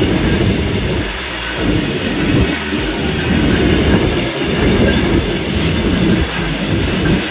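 Freight train wagons rolling past at very close range: a loud, steady rumble of steel wheels on the rails.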